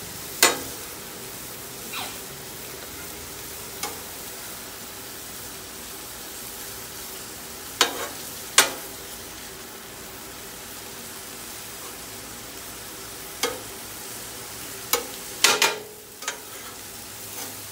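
Thin-sliced cheesesteak beef sizzling steadily on a Blackstone steel flat-top griddle. A metal spatula scrapes and chops against the griddle, giving about ten sharp clacks, most of them in a cluster near the end.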